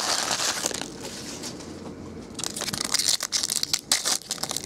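Foil wrapper of a 2012 Topps Chrome football card pack crinkling and tearing as it is ripped open by hand: a burst of crinkling at the start, then a denser run of tearing and crinkling from about halfway.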